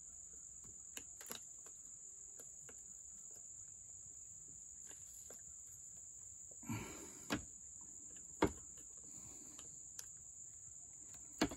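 Crickets trilling in a faint, steady, high-pitched chorus, broken by a few scattered sharp clicks and taps as a small screwdriver pries at a wiring grommet and plastic parts, the loudest click about two thirds of the way through.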